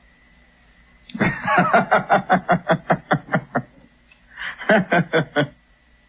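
A man laughing in two bouts of rhythmic ha-ha-ha pulses: a long run starting about a second in, then a shorter one near the end.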